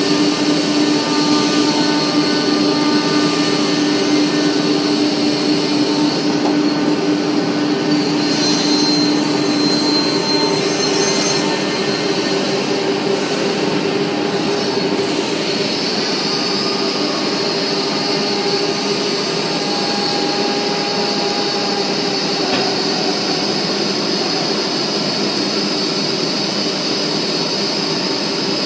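Semi-automatic panel saw running: a steady machine drone with a high whine from the spinning saw blade, its tone shifting slightly a few times.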